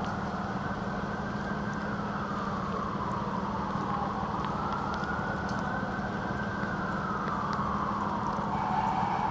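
An emergency vehicle's siren wailing, its pitch slowly falling and rising about twice, over steady city traffic noise.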